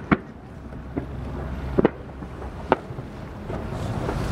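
Aerial fireworks shells bursting across the harbour: a series of sharp bangs roughly a second apart, one of them a quick double, over a low steady rumble.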